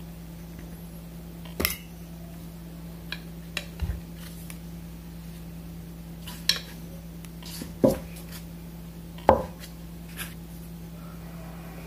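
Metal knife and fork clinking and scraping against a ceramic plate while cutting an omelette: scattered sharp clinks, the loudest two about eight and nine seconds in, over a faint steady hum.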